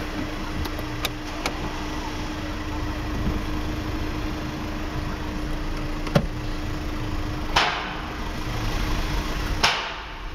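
Automatic car wash heard from inside a car rolling out of the bay: a steady hum with a few light clicks, then two short hissing swooshes near the end, after which the hum stops.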